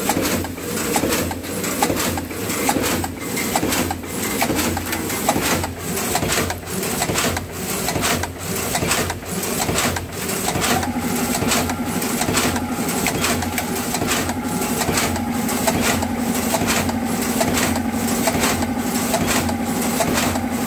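Vertical form-fill-seal pouch packing machine running, its sealing jaws and mechanism clacking over and over in a fast rhythm. About halfway a steady hum joins in and carries on under the clacking.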